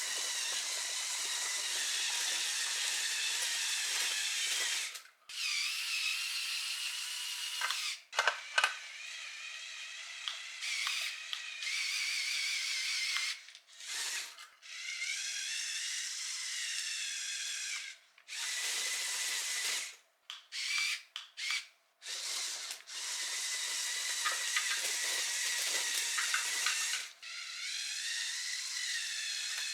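Small electric motors and plastic gear trains of a Mould King LEGO-compatible remote-control excavator whining as it drives up a rocky slope. The whine cuts out and starts again many times, its pitch wavering as the load on the motors changes.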